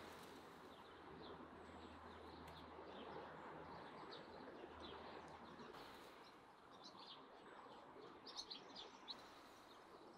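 Faint outdoor ambience with small birds chirping now and then, with a quick run of chirps about eight to nine seconds in.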